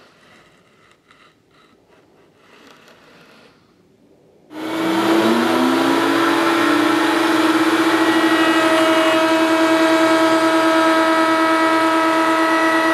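Table-mounted wood router switched on about four and a half seconds in, spinning up with a rising whine and then running steadily at full speed with a high motor whine.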